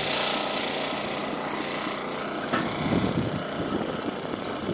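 Reciprocating saw running as it cuts into a steel frame beam, with a sharp knock a little over halfway through and rougher, louder cutting after it.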